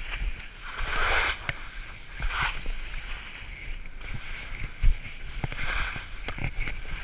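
Skis carving through soft spring snow: three long swishing hisses as the skier turns, over a low rumble, with a sharp knock about five seconds in.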